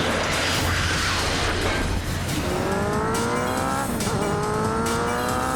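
Cartoon chase sound effects: a rushing whoosh, then an engine-like whine that rises in pitch twice, each about a second and a half long, over action music.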